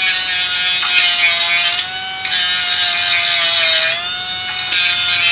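Air-powered die grinder fitted with a whiz wheel, running with a steady whine while grinding rough welds and burrs off the edge of a bicycle rim. The grinding noise breaks off briefly about two and four seconds in, between passes.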